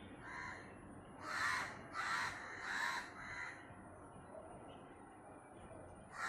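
Crows cawing: one faint caw, then a run of four loud, harsh caws in quick succession, after which only faint background remains.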